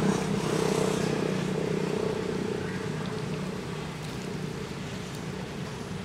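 A steady low motor hum that fades away over the first few seconds, over outdoor background noise.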